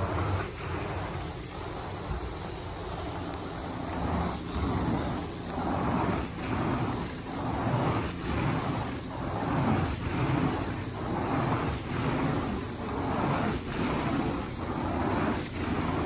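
Electric carpet-cleaning machine running steadily while it is pushed back and forth over carpet. Its noise swells and dips with each stroke, about once a second.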